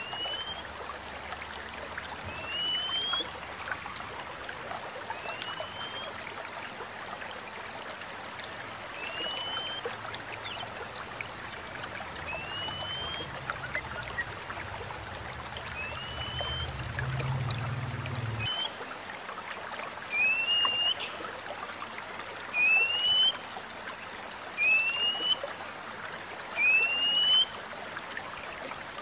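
Oriental magpie-robin (kacer) giving a short rising whistle over and over, about one every two seconds, the calls louder in the last third. Behind it is a steady trickling stream and a low hum that cuts off about two-thirds of the way through.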